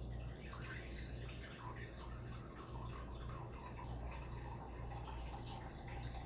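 Tap water running steadily into a bowl, with a steady low hum underneath.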